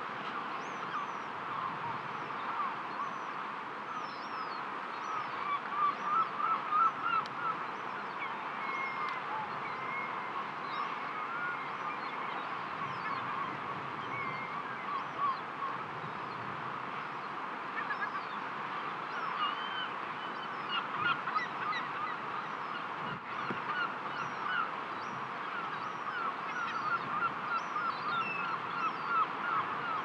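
A flock of birds calling continually over the steady wash of the sea. The calls are short and many, and crowd into louder, busier bunches several times.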